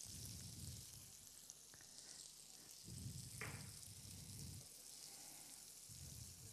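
Rabbit fillets sizzling faintly in butter that is turning nut-brown in a non-stick frying pan, while they are spooned over with the hot butter. A low murmur comes and goes underneath.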